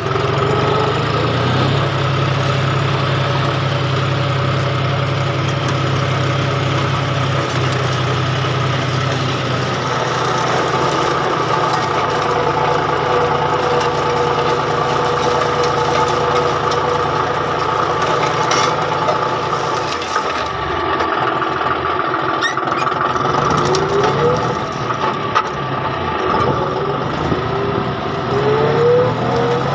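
John Deere farm tractor's diesel engine running steadily while pulling a disc implement through the soil, its pitch rising briefly a couple of times near the end.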